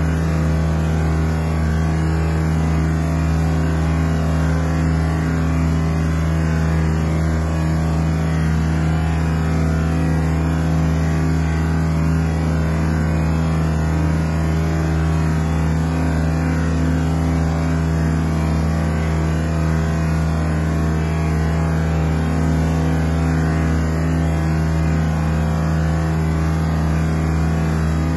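Diesel engine of paving machinery running steadily at one constant pitch.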